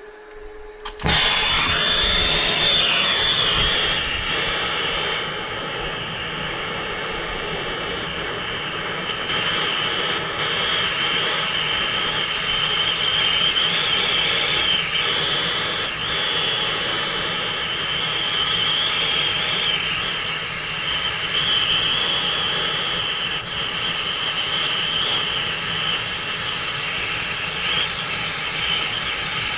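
A brazing torch flame lighting about a second in, then a steady hiss with a high whistling tone.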